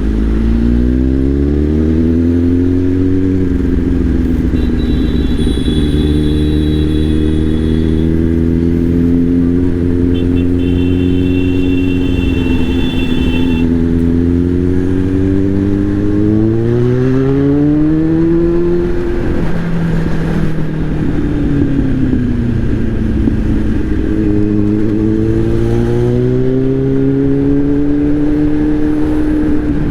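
Kawasaki inline-four motorcycle engine under way in traffic: its pitch climbs as it accelerates, holds steady while cruising, climbs again around the middle, drops suddenly and then rises once more.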